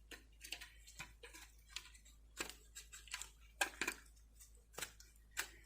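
Light, irregular clicks and taps of small diecast model car wheels being handled and pushed onto a metal axle, the wheels sitting loose with a lot of play.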